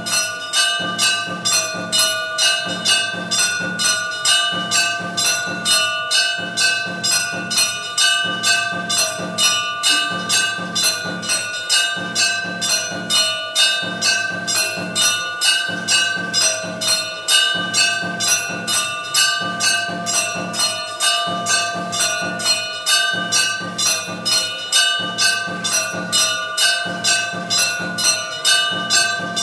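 Temple bells ringing steadily with regular strokes, about two a second, the ringing alternating between two pitches.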